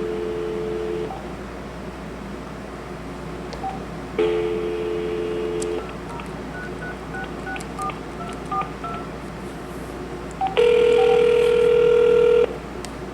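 Cordless phone handset earpiece: a steady dial tone, which stops and comes back, then a quick string of touch-tone (DTMF) keypad beeps as a number is dialed. About ten seconds in comes one ring of ringback tone, about two seconds long, meaning the called line is ringing.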